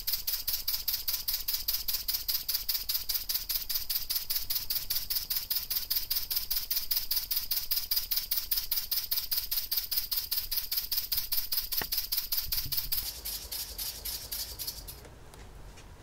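Wig-Wag V-twin oscillating air engine running on compressed air: a fast, even train of air puffs from its exhaust ports. The puffs die away about thirteen to fifteen seconds in.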